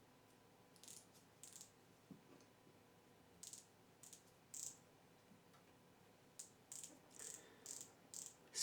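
Faint, irregular short clicks, about ten of them in small groups, from a micrometer's ratchet stop slipping as it is closed on a steel block to take a measurement.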